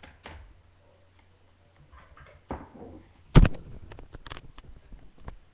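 Handling noise at a table: scattered clicks and knocks, with one loud bump about three and a half seconds in followed by a quick run of smaller clicks.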